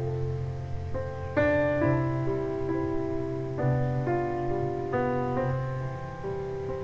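Piano playing an instrumental interlude of slow sustained chords, a new chord struck about every second.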